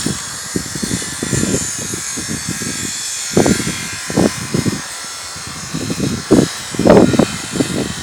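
Flyright 12-bird rotary decoy machine spinning, its small electric motor giving a steady whir, under irregular low rumbling bursts that are loudest about three and a half seconds in and again near the end.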